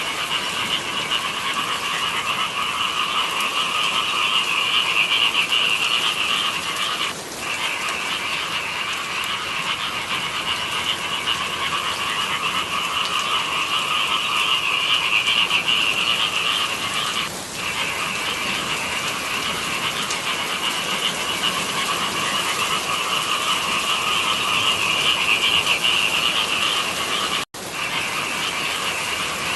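Dense chorus of many frogs calling at once, a steady massed croaking that swells and eases every several seconds. The sound cuts out completely for an instant near the end.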